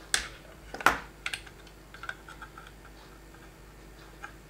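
Sharp clicks and taps of plastic parts and a circuit board being handled and lifted out of a digital microscope's plastic housing: two loud clicks within the first second, then a few lighter ticks around one and two seconds in.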